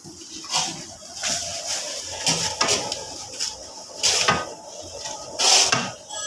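A long stirring rod scraping and knocking through corundum grit and lac in a large iron kadhai, in repeated strokes roughly once a second, the loudest about two-thirds of the way through. The mix is being worked continuously as it stiffens.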